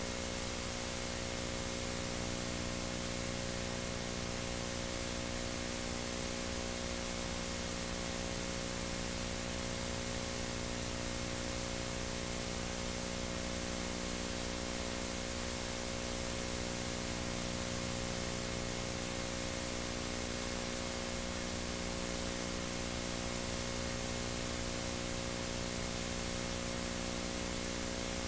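Steady hiss with a constant low electrical hum, the background noise of a VHS tape transfer playing with no program sound.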